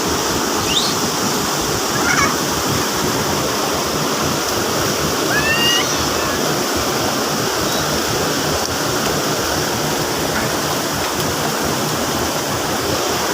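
Waterfall: a steady rush of falling water, even and unbroken, with a few faint short high glides over it.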